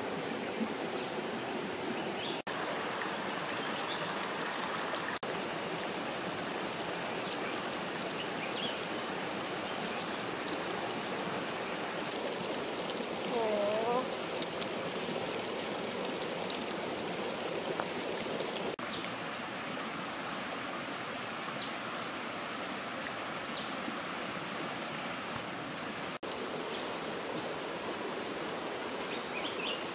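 Steady rushing of a stream flowing over rocks, with a brief pitched call about halfway through.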